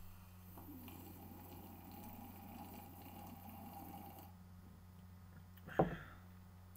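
Someone drinking from a glass, with faint swallowing and liquid sounds for about four seconds. Then a single sharp knock about six seconds in.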